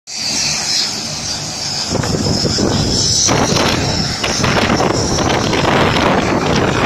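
Twin-turboprop transport plane's engines and propellers running close by as it taxis, with a steady high whine over a broad rush that grows louder about two seconds in. Wind buffets the microphone.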